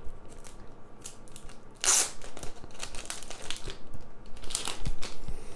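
Card packaging being opened by hand: rustling and crinkling, with louder rips about two seconds in and again near the end.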